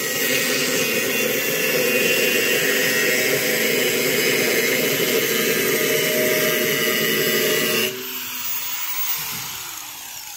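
Handheld electric angle grinder grinding along the edge of a steel sheet, a steady loud whir. About eight seconds in the sound drops and fades lower.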